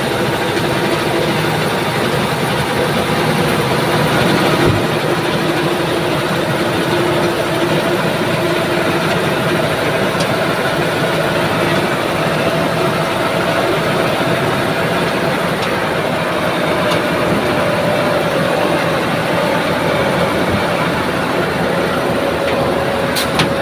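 Diesel engine of a heavy recovery wrecker running steadily under load, with a steady whine, as it powers the hydraulic boom and winch pulling an overturned truck back upright.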